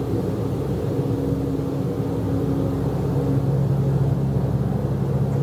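A steady low drone in the sky with two held low tones; the higher one fades about halfway through as the lower one grows stronger. This is the unexplained 'trumpets in the sky' noise, which the people recording liken to a light aircraft.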